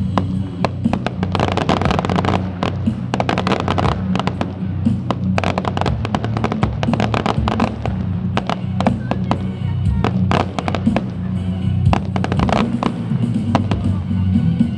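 Fireworks going off in rapid succession: many sharp bangs and crackles, thickest in two clusters early and mid-way, over loud music with a steady bass line.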